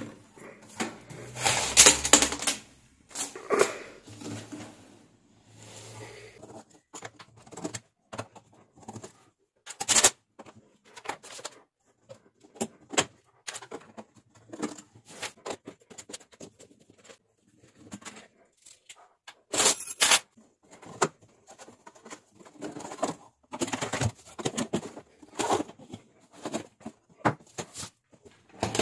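Irregular clicks, taps and scrapes of a large digital wall clock's case being handled and taken apart by hand, with a few louder knocks scattered among them.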